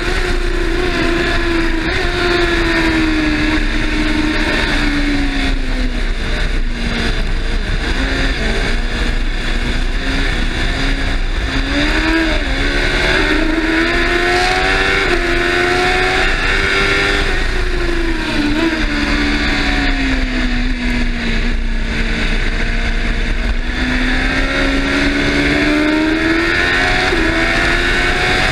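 Racing sidecar outfit's engine heard on board at race speed, revving hard. Its pitch climbs and drops several times as it accelerates out of corners and backs off for braking.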